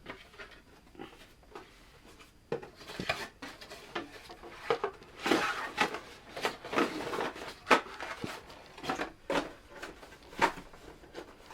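A cardboard camera box and its packaging being worked open by hand: irregular knocks, scrapes and rustling, starting about two and a half seconds in.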